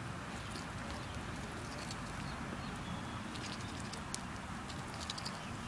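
A duck pecking goldfish crackers off the grass: scattered quick clicks and snaps of its bill, clustered in the second half, over a steady low background rumble.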